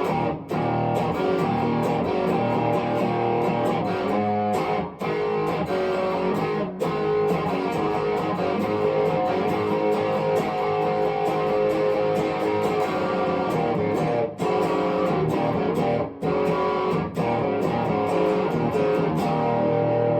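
Epiphone 1959 Les Paul Standard electric guitar being played, with notes and chords following one another and several short breaks. Near the end it settles on a held, ringing chord.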